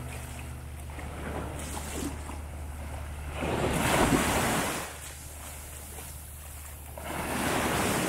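Small sea waves breaking and washing up a sandy beach, with one surge swelling about halfway through and another near the end, over a steady low rumble.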